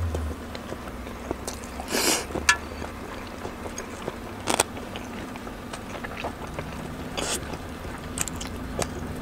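A person chewing a mouthful of bakso meatball close to the microphone, with a handful of short, sharp mouth clicks spread through.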